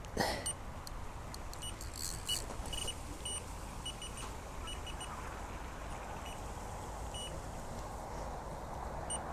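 Electronic bite alarm giving short, high beeps at irregular intervals, the sign of line being pulled off a rod by a hooked fish. A loud brief knock just after the start and a steady low wind rumble underneath.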